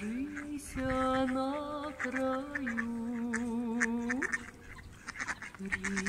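A voice singing a slow Russian lullaby in long held notes, while mallard ducks quack around it. The singing stops a little after four seconds in, and the quacking grows busier toward the end.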